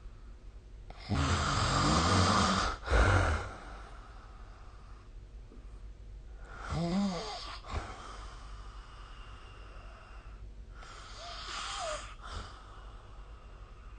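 A sleeping person snoring. A long rough snore comes about a second in, quickly followed by a shorter one. Two fainter snores follow about four seconds apart, and the first of these has a brief wavering pitched tone in it.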